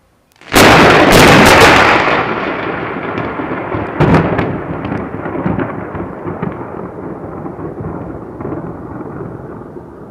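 Thunder from a very close lightning strike: a sudden loud crash with several sharp cracks about half a second in, a second crack about four seconds in, then a rumble that slowly dies away.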